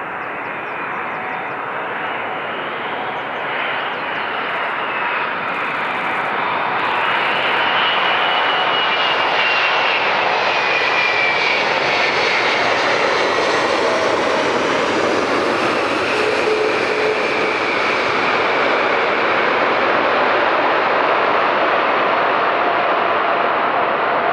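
Airbus A380's four jet engines on landing approach, growing louder over the first several seconds, with a whining fan tone that falls in pitch as the aircraft passes. The engine noise then holds steady through the touchdown and rollout.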